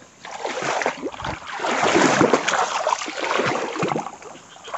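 Water sloshing and splashing in an irregular series as a person wades through floodwater.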